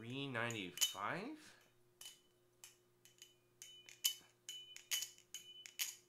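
Black Balisong Channel Reaper V2 butterfly knife, with grade 5 titanium handles on bushings, being flipped. From about two seconds in there is an uneven string of sharp metal clicks, roughly two or three a second, as the handles swing and latch. Many clicks ring on with a clear high metallic tone, which is heard as the knife ringing beautifully.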